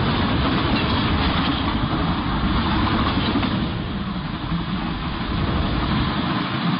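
Sound effect of a high-speed train rushing past: a steady, dense rush of noise with a heavy low rumble, easing slightly a little past the middle and building again near the end.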